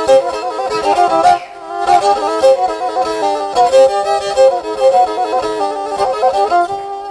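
Black Sea kemençe bowed in a quick instrumental folk-dance melody, the notes changing rapidly with several strings sounding together.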